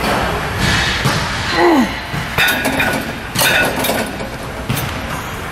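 A seated leg curl machine in use: clinks and knocks of the weight stack and frame, with a short falling tone about two seconds in and a few short hissing bursts.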